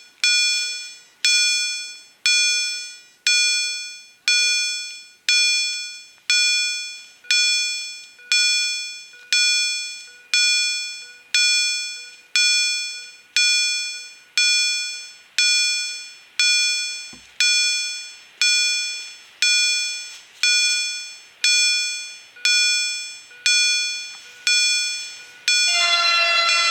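Level-crossing warning bells of an SPA-2A ZWUS crossing system, two EHL bells, striking steadily a little more than once a second, each stroke ringing and dying away: the crossing warning is active. Near the end a steady tone that falls in pitch comes in over the bells.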